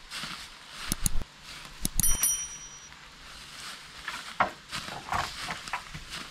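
Dead wooden pole being wrenched down from a tree: a handful of sharp cracks and knocks about one to two seconds in, the last with a brief high ring. Then footsteps and the pole dragging through dry leaf litter.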